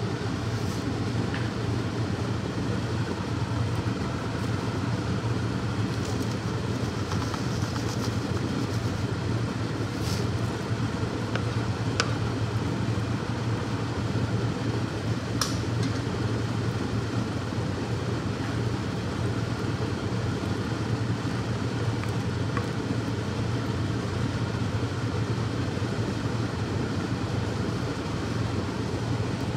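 Steady low hum and hiss in a kitchen as a pot of chicken boils in water and ghee on the cooktop, with a few faint clicks.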